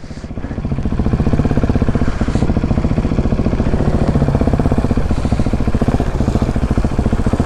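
Husqvarna 701's single-cylinder engine running under the rider, a dense, even pulse that builds back up over the first second and then holds steady.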